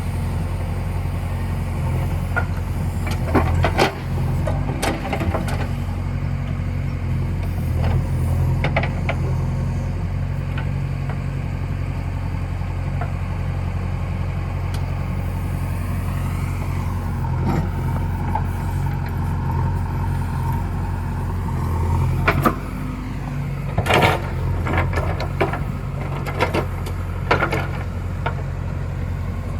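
JCB backhoe loader's diesel engine running steadily under work, with scattered clanks and knocks. A whine rises and falls about halfway through.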